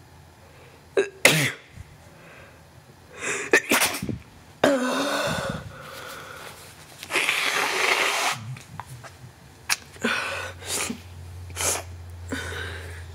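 A man with a stuffy head cold sneezing again and again, several sudden sneezes with breathy intakes between them. The loudest comes about a second in.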